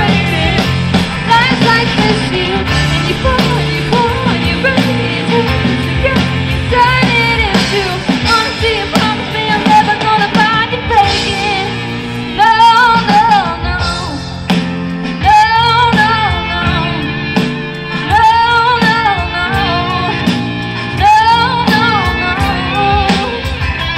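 A live rock band playing amplified through a PA, with drums, bass, guitars and keyboard. About halfway through, a strong wavering melody line rises above the band.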